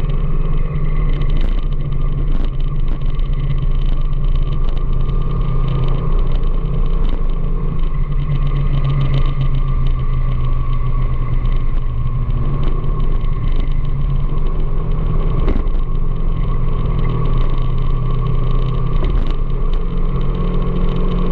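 Vehicle engine running at a steady pace with road noise while riding, a constant low hum that barely changes, with a few faint clicks.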